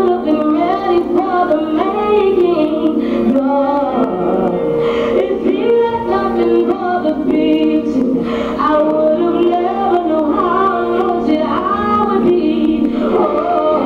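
Music with a woman singing a melody over sustained, held accompaniment chords, continuing without a break.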